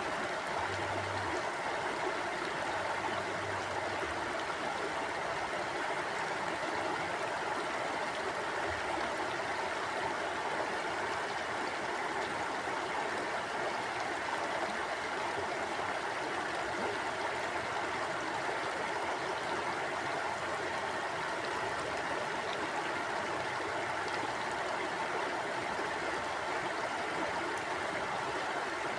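Mountain river flowing over rocks: a steady, even rush of water.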